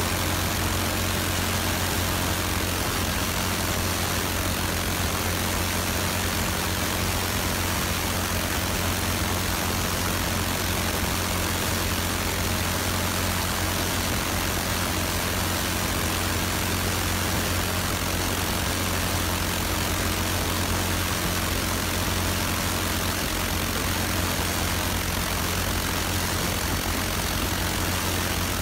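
Internal combustion engine running steadily, driving hot exhaust and vacuum-drawn air through the thunderstorm-generator ducting. It is a low steady drone under a constant hiss, with no change in speed.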